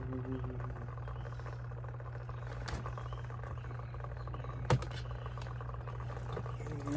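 Steady low hum with one sharp click about two-thirds of the way through.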